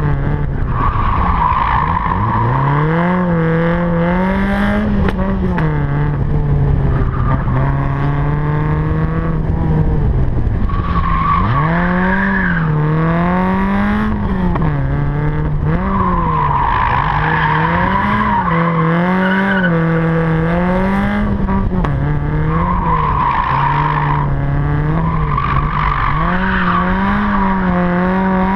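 A small hatchback's engine, driven hard on a race circuit, revving up and down over and over as the throttle is worked through the corners. Its tyres squeal in several stretches, about a second in, around eleven to twelve seconds, for a few seconds from about sixteen seconds, and again near twenty-three to twenty-seven seconds.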